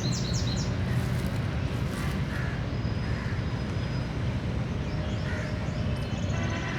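Crows cawing now and then among the chirps and trills of smaller birds, over a steady low rumble.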